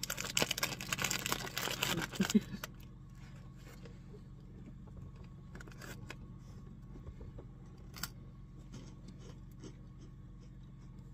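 Plastic wrapper on a pack of nutrition biscuits crinkling and tearing as it is opened, loud for the first two and a half seconds. After that only a few faint scattered clicks and rustles.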